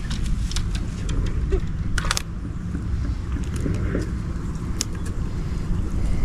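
A steady low rumble with scattered light clicks and rustles as hands work the hook out of a freshly caught catfish. A sharper click comes about two seconds in and another near five seconds.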